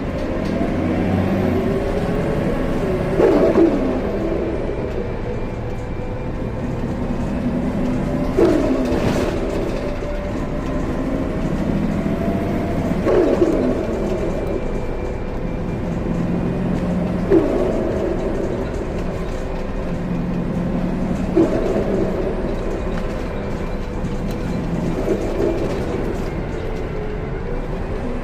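2014 Gillig Low Floor BRT Plus CNG bus engine running steadily under way, with a short cough-like dip in pitch that recovers, repeating about every four to five seconds.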